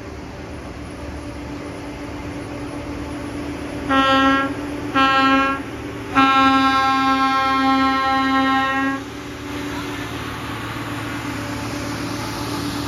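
Self-propelled track maintenance machine approaching along the rails, its engine running louder as it nears. It sounds a one-note horn in two short blasts and then one long blast of about three seconds.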